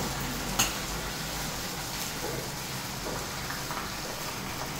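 Oil sizzling steadily in a wok over a gas burner, with a single sharp metal clink about half a second in as the lid of a round steel spice box is lifted off.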